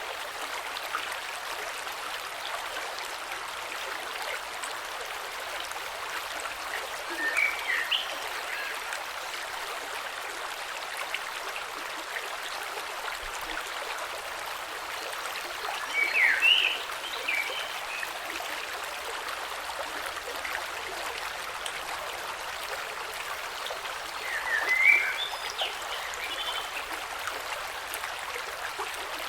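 Creek water flowing over stones: a steady, even rush. Over it, a bird sings the same short chirping phrase three times, about eight or nine seconds apart.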